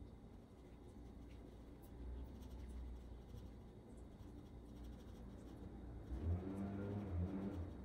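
Faint soft scraping and small taps of a hand tool working wet epoxy on a board. A low pitched drone comes in about six seconds in and is the loudest part.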